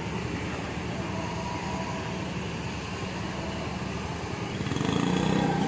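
Mercedes-Benz coach's diesel engine running as the bus pulls away at low speed, a steady low rumble that grows louder about five seconds in as the bus turns toward the listener.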